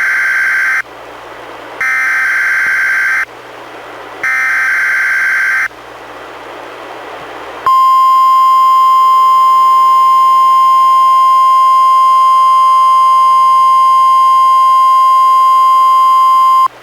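NOAA Weather Radio Required Weekly Test signal: three short bursts of SAME digital header data tones, then the steady single-pitched weather radio warning alarm tone, held about nine seconds and cut off sharply.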